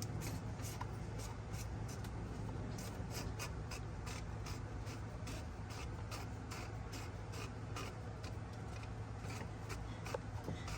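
Plastic oil filter housing cap being screwed in by hand: irregular light ticks and rubbing as its threads turn, over a steady low hum.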